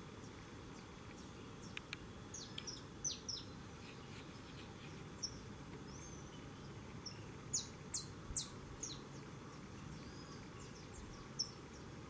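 Scattered short, high bird chirps, a few at a time, the loudest being three sharp chirps a little past the middle, over steady faint background noise.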